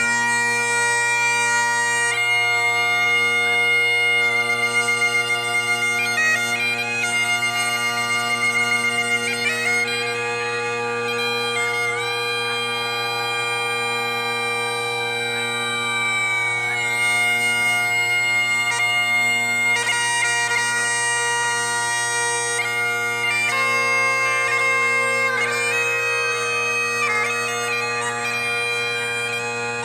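Bagpipes playing a slow tune: a melody over steady, unchanging drones, with quick ornamental flicks between some of the notes.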